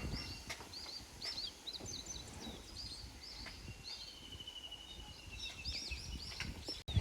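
Small songbirds singing: quick repeated high chirps, with a rapid trill lasting about two seconds midway, over the low rumble of wind on the microphone. The sound cuts out for an instant just before the end.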